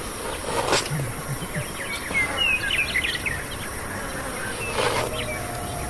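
Bush ambience: a steady high insect drone, with a quick run of bird chirps about two to three seconds in. Two brief noisy sounds, about a second in and near five seconds, stand out over it.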